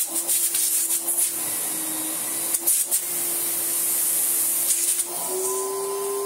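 Electrolux Z350 Electronic cylinder vacuum cleaner running at its minimum power setting: a steady motor hum with a hiss of rushing air. There are a couple of light clicks partway through, and about five seconds in the motor tone steps up slightly in pitch.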